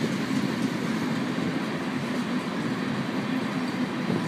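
Freight train of tank cars rolling past, a steady noise of wheels on rail.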